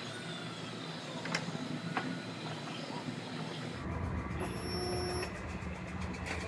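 A few light metallic clicks and taps, then about four seconds in a resistance spot-weld gun clamped on a car's steel frame rail starts a steady electrical hum while it welds.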